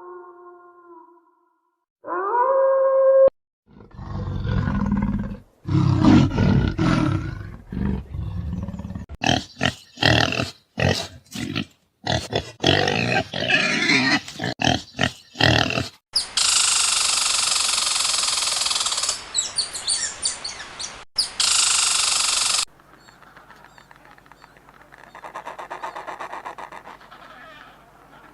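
A string of different animal sounds: a short rising call, then deep growling roars, then rapid choppy calls, then a loud steady rushing noise that cuts off and gives way to a quieter low hum.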